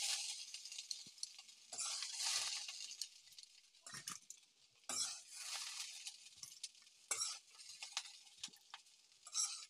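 Perforated steel spatula scraping fried cauliflower out of a steel wok and into a steel bowl: short irregular scrapes of metal on metal, with a few sharp clinks.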